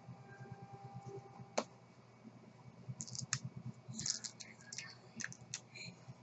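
Light clicks and scratchy scraping of a plastic guitar pick prying at the seal stickers on a cardboard phone box, coming in irregular bursts that grow busier about three seconds in.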